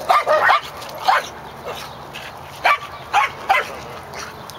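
A dog giving a series of short, sharp yipping barks, about seven of them in quick clusters with gaps between.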